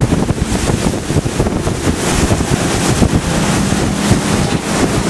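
Wind buffeting the microphone over the noise of water and a running boat, with a steady low engine hum coming through from about three seconds in.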